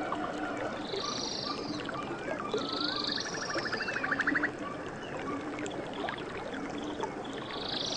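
A chorus of jungle birds: harsh squawking calls about a second in, around three seconds and again near the end, a fast rattling trill in the middle, scattered short whistles, and a low note repeating now and then.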